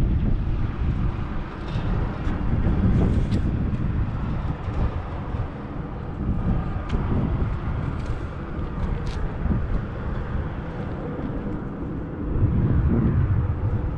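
Wind buffeting the microphone outdoors: a loud, uneven low rumble that swells again near the end.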